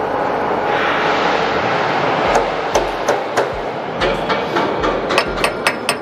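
Sharp metal taps and clicks from hand tools on steel fittings as a threaded rod and its pins are set into a support bracket. A few are spread out at first, then they come quicker near the end, over a steady workshop hiss.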